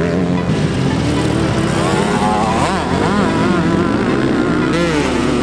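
Motocross dirt bike engines revving hard, their pitch rising and falling again and again as the riders work the throttle.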